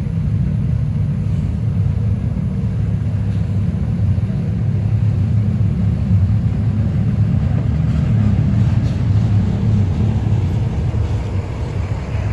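Low, steady rumble of a vehicle engine running, with no horn sounding.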